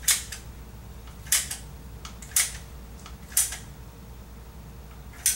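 Dental cartridge dispensing gun clicking with each squeeze of the trigger, five sharp clicks about a second apart, as two-part material is pushed through the mixing tip into a dental tray.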